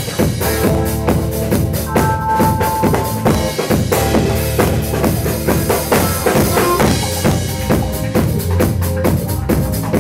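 Live band playing an upbeat number, the drum kit keeping a steady beat under the other instruments.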